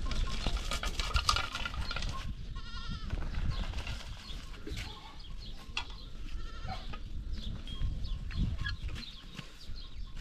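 Stone roller dragged on a rope over gravel, rolling with a low rumble and crunching clicks, and a goat bleating once, wavering, a little over two seconds in.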